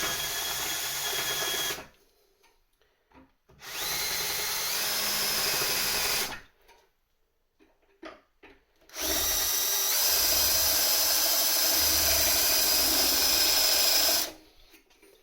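Electric drill grinding down the leftover stubs of aluminium rivets on a pedal, run in three bursts. At the start of each burst the motor whine rises as it spins up. A few small knocks fall in the quiet gaps between.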